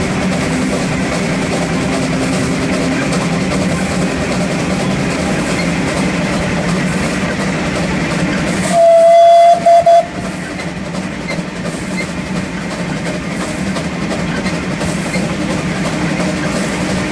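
Running noise of A10 No. 6, an 1865 Neilson-built steam locomotive, heard from its tender. About nine seconds in, its steam whistle gives one loud blast on a single steady note lasting just over a second, broken briefly near the end.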